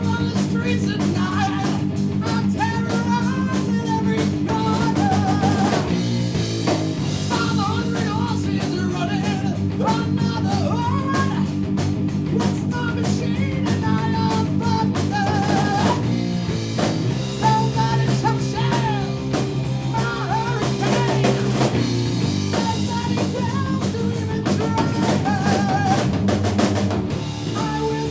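Rock band playing a song live: drum kit, electric guitar and bass, with a lead melody bending in pitch over the top. The chords change several times.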